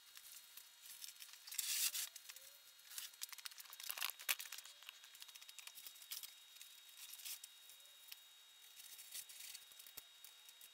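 Faint handling noise as a badminton net and its plastic pole frame are put together: irregular rustling and scraping with scattered light clicks, loudest in two bursts about two and four seconds in.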